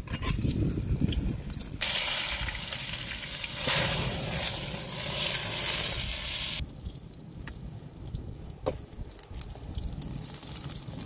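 Eggplant slices frying in oil in a metal pan over a wood fire. A loud hissing sizzle comes in suddenly about two seconds in and cuts off about five seconds later, leaving a quieter stretch with a few light clicks.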